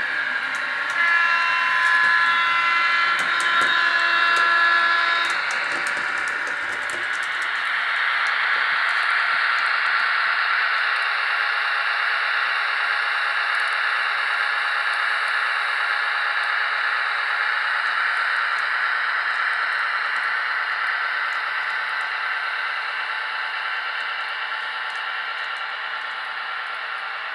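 HO-scale model train running on the layout track. For the first five seconds the electric motor of a model locomotive whines steadily, with rapid clicking of wheels over the track. Then comes a steady rolling hiss of model hopper wagons passing, fading slowly near the end.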